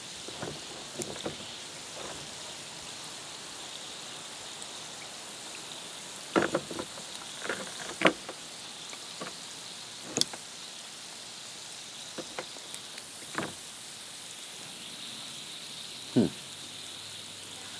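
Steady fizzing of calcite dissolving in diluted muriatic acid, with gas bubbles bursting at the surface, the sign that the rock holds calcite. A few short knocks and splashes come as a stick pokes and turns the rocks in a plastic pan.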